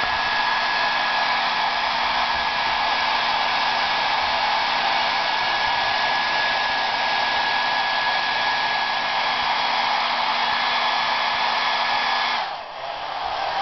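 Handheld hair dryer running steadily, a loud rushing blow with a steady whine and low hum, which drops away sharply about a second before the end.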